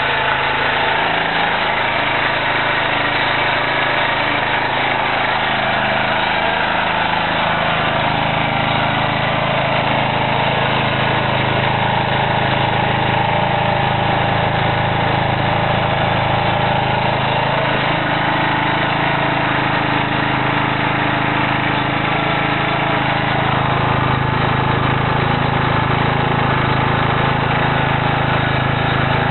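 Portable petrol generator's engine running steadily on wood gas, fed through a hose into its air intake. Its pitch shifts slightly a few times.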